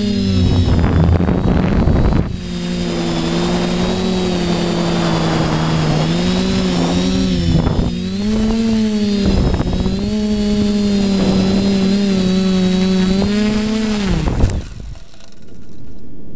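Quadcopter's electric motors and propellers whining, heard from the camera on the frame, the pitch rising and falling with the throttle. About 14 seconds in the pitch sags, there is a short knock, and the motors cut off as the quad comes down in the grass.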